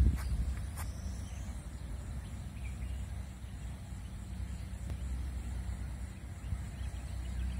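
Outdoor background: a steady low rumble with faint, scattered high chirps. There are a couple of sharp clicks in the first second.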